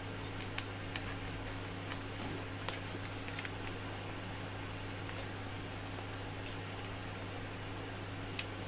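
Faint handling noise: small clicks and rustles as a braided textile cable sleeve is worked over a bundle of wires by hand, over a steady low hum.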